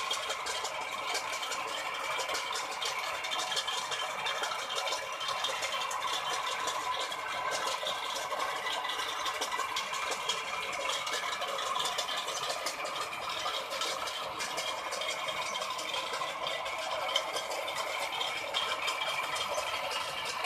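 A sparrow-repelling machine rattling continuously: a dense, even clatter of many fast clicks with no let-up.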